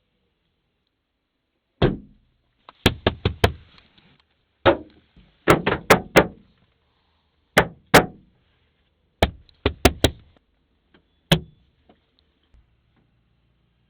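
Knocking on a hard surface: about fifteen sharp knocks in irregular groups of one to four, with short pauses between the groups.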